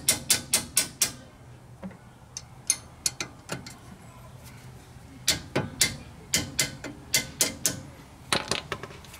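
Small hammer striking an open-end wrench on a front brake caliper bolt to break the bolt loose: sharp metallic taps about four a second for the first second, a few scattered taps, then another run of about three a second from about halfway through, and two last taps near the end.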